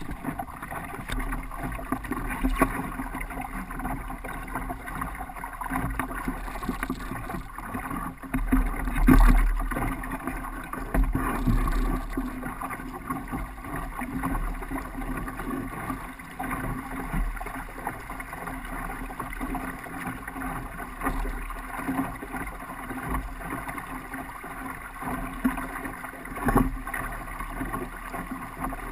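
Water rushing along the hull of a sailing canoe under way, with wind buffeting the microphone in gusts and an occasional knock.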